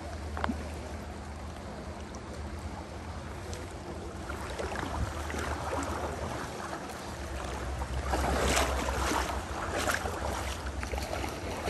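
Wind buffeting the microphone over the wash of a river in the rain: a steady low rumble with an even hiss of water, swelling louder about halfway through and again around eight seconds in.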